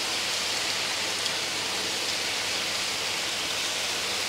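Marinated carne asada and chicken pieces sizzling steadily on a hot Blackstone flat-top griddle, an even frying hiss.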